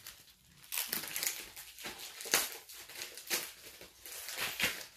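Plastic mailer bag crinkling and rustling as it is handled and pulled open, irregular, with a few louder crackles.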